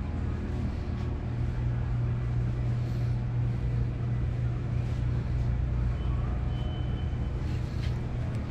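A steady low rumbling drone with faint background noise, unbroken throughout, and a brief faint high tone around two-thirds of the way in.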